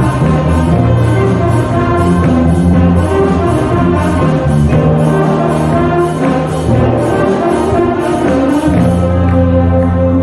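Wind band playing a pop tune: brass and saxophones over a drum kit keeping a steady beat, with keyboard.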